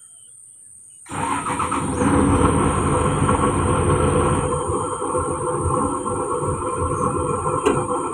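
Komatsu PC200-8 excavator's common-rail diesel engine running with a steady low rumble, coming in suddenly about a second in after a quiet moment.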